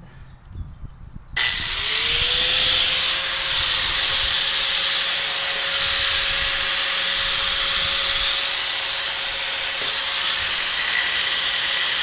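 Electric angle grinder switched on about a second in: its motor whine rises quickly and then holds steady under a loud hiss as it grinds the corner of a metal bracket.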